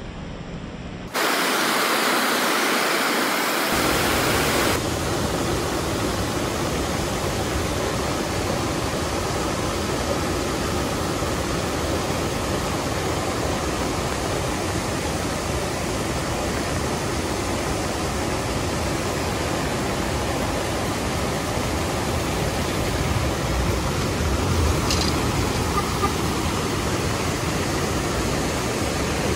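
Steady hiss of heavy rain mixed with a rushing rocky river, which jumps louder and brighter about a second in.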